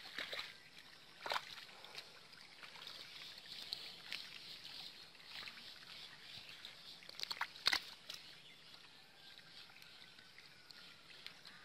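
Wet mud and shallow muddy water squelching and sloshing as hands dig through a drained pond bed for fish, with two sharp wet slaps, about a second in and again past the middle.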